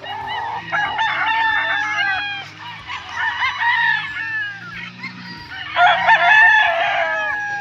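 Several gamefowl roosters crowing at once, their crows overlapping in three waves.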